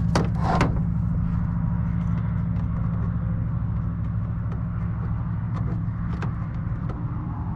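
Small clicks and taps of plastic and metal parts being handled as a TV is taken apart, with a short scraping rattle about half a second in, over a steady low hum.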